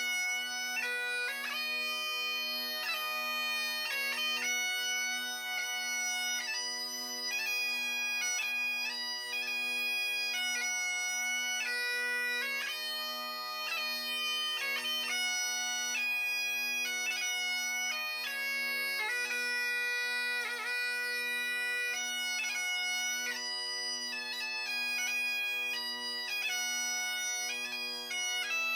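Bagpipes playing a melody of held notes over steady drones, with quick grace notes between the melody notes.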